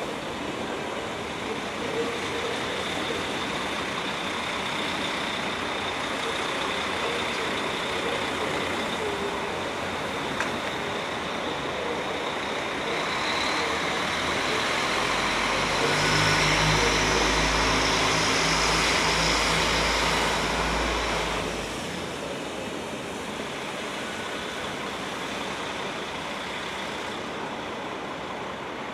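Diesel multiple unit (Alstom Coradia LINT) running slowly past: steady running and rail noise, with a low diesel engine drone that swells for several seconds past the middle as a powered car goes by, then drops off sharply.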